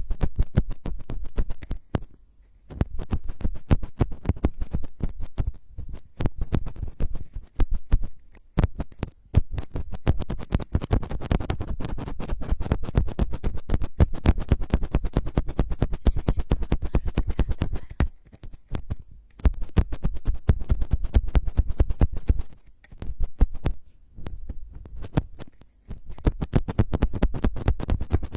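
Rapid close-microphone ASMR scratching: a dense run of sharp crackling scratches, many per second, in long stretches broken by brief pauses, with a heavy low thump under them.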